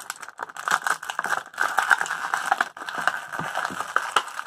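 Clear plastic blister packaging crinkling and crackling as hands twist and pry at it to free a small action figure that is hard to get out.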